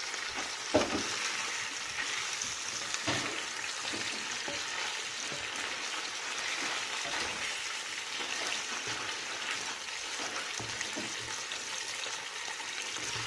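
Pieces of moose liver sizzling steadily in a frying pan, with a couple of short knocks of a utensil against the pan, the loudest about a second in and another about three seconds in.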